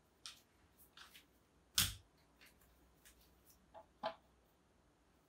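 A few light clicks and knocks of handling, the loudest about two seconds in, as a ruler and marker are set against a small whiteboard.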